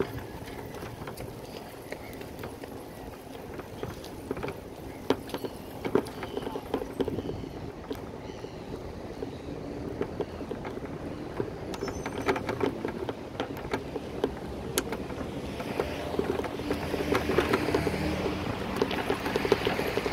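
Noise of riding a bicycle: a steady rumble with many scattered clicks and rattles, growing somewhat louder over the last few seconds.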